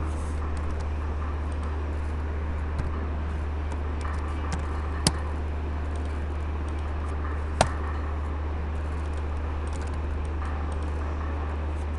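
Steady low hum and hiss of a recording microphone, with scattered mouse clicks and key taps at a computer; two sharper clicks stand out, about five seconds in and again two and a half seconds later.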